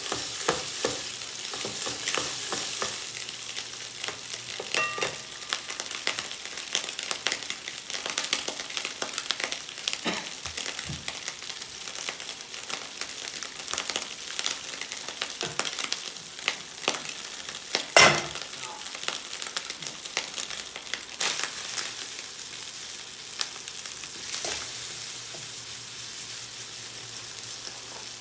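Food sizzling and frying in a pan, with frequent short clicks and scrapes of a utensil stirring it. There is one sharp, louder knock about two-thirds of the way through.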